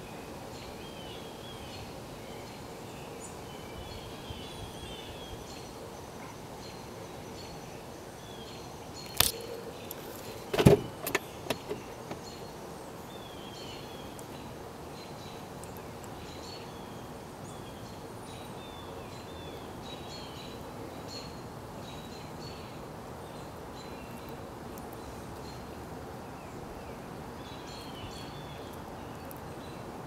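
Small birds chirping on and off over a steady background noise, with a short cluster of sharp knocks about nine to twelve seconds in.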